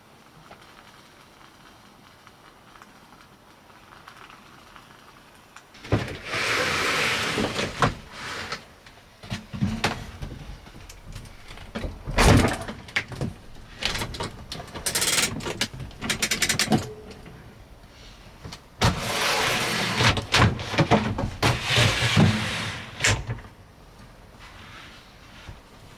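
Faint steady rain, then bursts of rustling, sliding and knocking as things are handled and moved, with a sharp knock about twelve seconds in.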